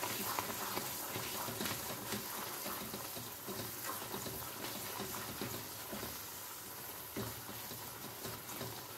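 Thick bread halwa frying in ghee in a nonstick pan while a silicone spatula stirs it: a steady sizzle with frequent small ticks and scrapes. The ghee is separating out of the mixture, the sign the halwa is nearly cooked.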